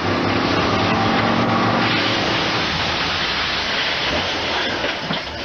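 A pickup truck's engine revving hard as the truck lunges forward, under a loud, continuous noisy rush that starts abruptly and fades a little near the end.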